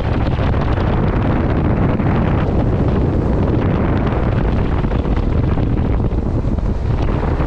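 Steady wind rumble on the microphone from a fishing boat running at speed, with the boat's engine and water noise mixed in.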